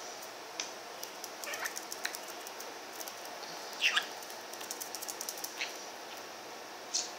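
Budgerigar's claws ticking and pattering on a wooden tabletop as it walks about, with a few short chirps; the loudest is a quick falling chirp about four seconds in.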